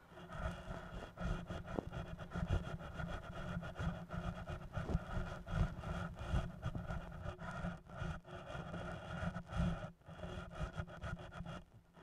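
Experimental electronic soundtrack of a two-screen video installation: a dense, crackling noise texture over a choppy low rumble, cutting out briefly a few times.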